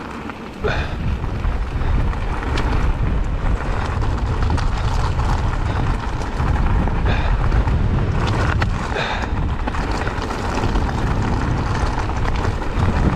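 Strong wind buffeting a helmet-mounted GoPro's microphone: a heavy, steady low rumble, with a few faint clicks and rattles over it.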